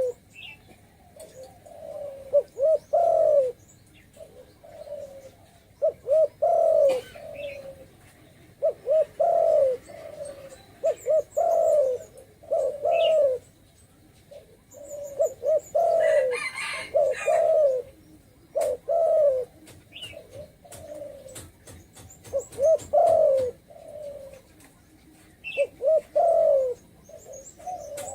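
Spotted dove calling: repeated phrases of deep, falling coos, one phrase every two to three seconds, with a few faint higher chirps between and a short burst of noise a little past halfway.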